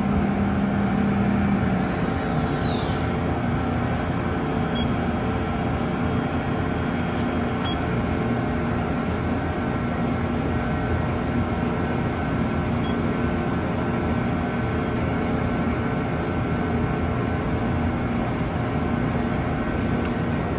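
Mori Seiki Dura Vertical 5100 CNC vertical machining center running as its table and head are jogged. A low steady tone stops about two seconds in as high whines fall in pitch, an axis move winding down. After that a steady machine hum with several held tones carries on.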